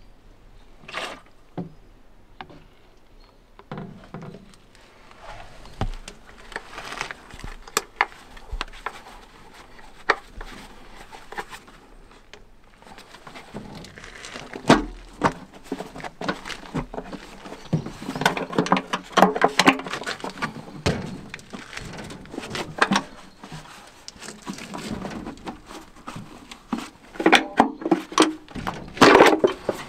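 Metal clicks, knocks and scraping as a valve cover is worked loose and lifted off one cylinder bank of a Kirovets K-700A's V8 diesel, with two bursts of denser clattering, one in the middle and one near the end.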